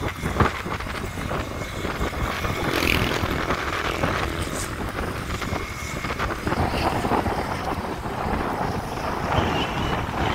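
Wind buffeting the microphone of a moving vehicle, with engine and road noise underneath, as it rides along at speed.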